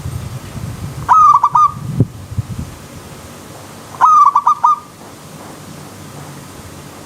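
Zebra dove (perkutut) calling twice, about three seconds apart. Each call is a rising note followed by a quick run of short coos, over a steady rushing stream.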